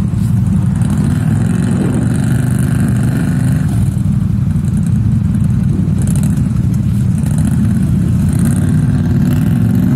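ATV engine running steadily at an even speed, loud and close.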